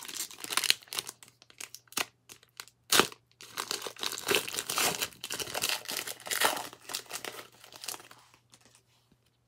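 Foil wrapper of a 2011 Donruss Elite Extra Edition baseball card pack being torn open and crinkled by hand: dense crackling with two sharp snaps about two and three seconds in, dying away near the end.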